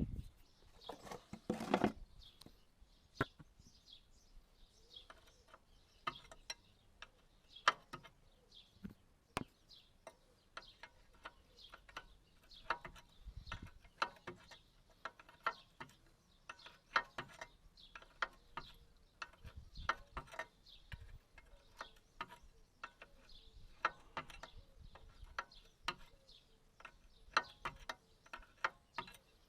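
Ratchet spanner clicking in short irregular runs while undoing a mini digger's track-adjuster bolt, with sharp metallic ticks and one louder knock about a second and a half in.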